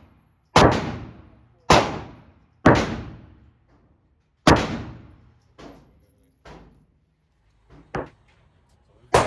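Glock pistol shots at a shooting range: three loud shots about a second apart, a fourth after a short pause, then several fainter shots, and another loud shot near the end. Each shot rings out with a long echoing tail.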